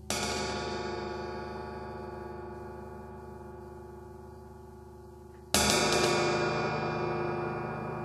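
22-inch wind gong, which its owner believes to be Turkish-made, struck twice with the tip of a wooden drumstick, about five and a half seconds apart, the second stroke a little harder. Each stroke sets off a long ring of many overtones that slowly fades.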